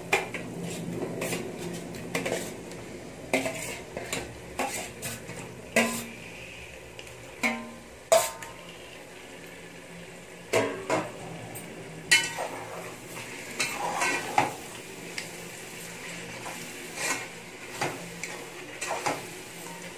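Metal plate and spatula clinking, knocking and scraping against a metal cooking pot as raw chicken pieces are tipped into the masala and stirred in. The sharp clinks come irregularly throughout.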